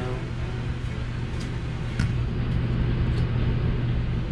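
Steady low hum of a camper's rooftop air conditioner running. A few light clicks of playing cards being handled sound over it, the loudest about two seconds in.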